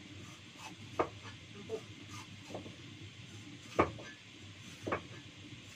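Kitchen knife slicing bitter melon thinly on a cutting board: a few irregularly spaced knocks of the blade on the board, the loudest about a second in and near four seconds in.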